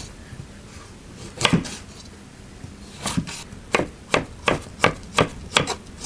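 Chef's knife slicing broccoli stems on a bamboo cutting board, each cut ending in a knock of the blade on the board: a single knock about a second and a half in, then a steady run of knocks about three a second.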